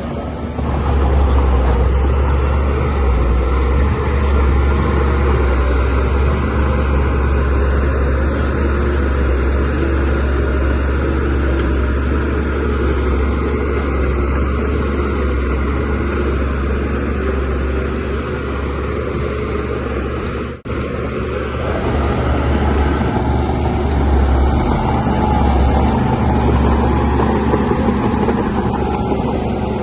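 Shantui DH17C3Pro bulldozer's diesel engine running steadily while it pushes soil, with a strong low rumble. The sound drops out briefly about two-thirds through.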